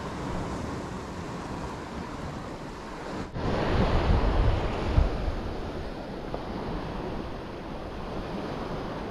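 Sea waves washing against a rocky shore with wind on the microphone; a bigger surge comes in a little over three seconds in and dies away over the next few seconds.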